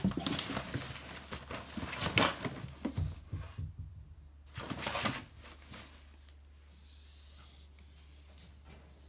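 Pop-up fabric cat tent rustling and crumpling as cats push against it and it folds flat, with the loudest crumples about two seconds in and again near five seconds. After that it falls quiet, leaving a steady low hum.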